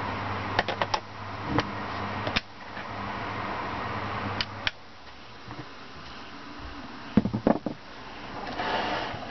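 Small clicks and taps from hands handling things on a workbench, with a quick cluster of louder clicks about seven seconds in, over steady room noise with a low hum that drops away about two and a half seconds in.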